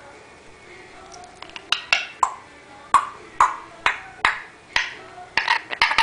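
African grey parrot making a quick run of sharp clicking pops, each with a short ringing tail, about two a second, beginning about a second and a half in.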